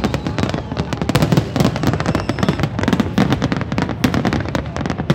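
A large fireworks display: the bangs of many aerial shells and their crackle, coming fast and overlapping without a pause.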